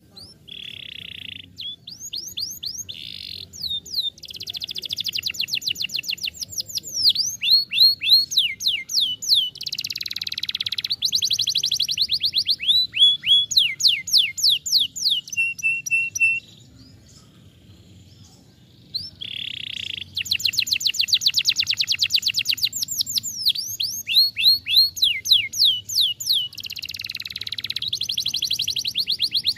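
Domestic canary singing a long, loud song of fast trills, each made of rapidly repeated down-slurred notes, mixed with buzzy rolls. The song breaks off for about two and a half seconds midway, then starts again.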